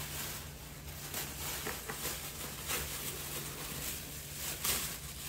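Faint rustling and handling sounds over a low steady hum, with a couple of brief rustles near the end.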